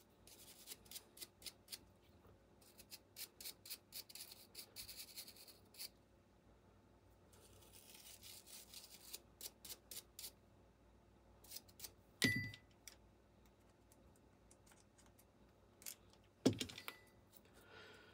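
Small wire brush scrubbing an AR-15 bolt carrier group in quick bursts of scratchy strokes. Two sharp metal clinks with a brief ring come about twelve and sixteen seconds in.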